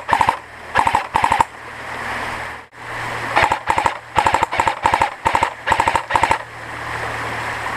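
Airsoft electric AK-47 replica firing short full-auto bursts, each a quick rattle of a few shots with the gearbox whining. There are three bursts, a pause of about two seconds, then eight more in quick succession.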